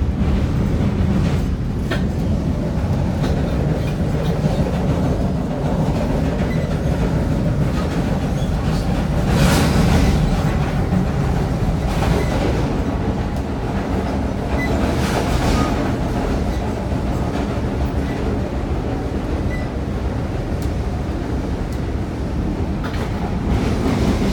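Amtrak Capitol Corridor passenger train rolling over a steel truss railroad bridge, heard inside the coach: a steady low rumble of wheels on rails. The rush swells louder briefly about ten seconds in and again about fifteen seconds in.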